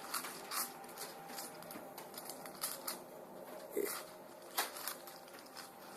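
Irregular plastic clicks and clacks of a 5x5 Rubik's cube's layers being turned by hand, with a few sharper snaps about a second apart.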